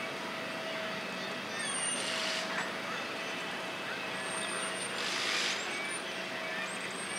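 Outdoor traffic background: a steady hum with two short hissing bursts, about two and five seconds in, and faint high chirps.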